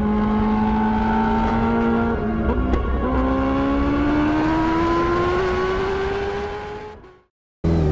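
Kawasaki Ninja H2's supercharged inline-four running through a Vandemon exhaust with the baffle fitted, pulling under way. The engine note holds steady, dips briefly about two seconds in, then climbs slowly. It fades out near the end and cuts back in just before the end.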